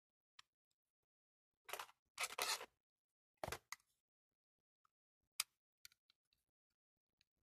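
Handling noise from a plastic Trodat Printy Dater 4810 date stamp being turned over in the hands: two short scraping rustles about two seconds in, then a few light, scattered clicks.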